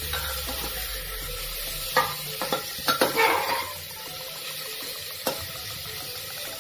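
Chopped onions and green chillies sizzling in oil in a pressure cooker as they fry towards brown, stirred with a metal slotted spatula that scrapes and knocks against the pot a few times, about two and three seconds in and again after five seconds.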